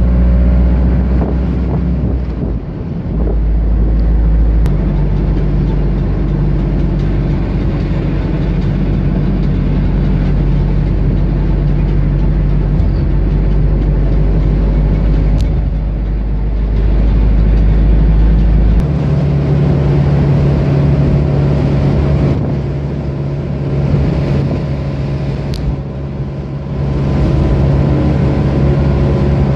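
Steady engine and tyre noise of a car driving on a highway, heard inside its cabin. The low drone drops to a different pitch about two-thirds of the way through.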